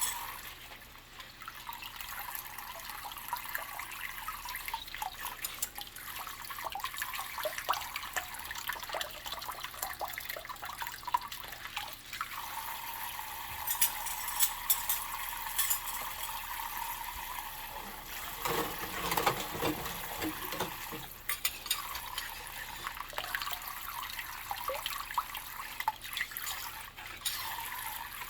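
Tap water running steadily into a kitchen sink while dishes are washed by hand, with small clicks and knocks of dishware. It gets louder for a couple of seconds about two-thirds of the way in.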